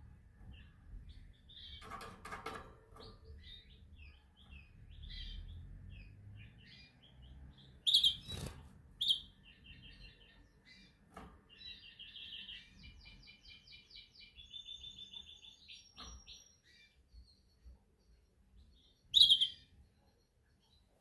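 Domestic canary singing: scattered high chirps and short phrases, with rapid rolling trills in the middle and a few loud sharp chirps. A few brief knocks are heard along the way.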